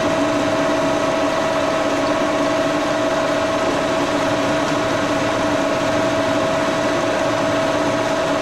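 1942 Brown & Sharpe No. 2 milling machine running, its vertical spindle turning a 1-inch end mill at 1550 rpm with a steady high whine.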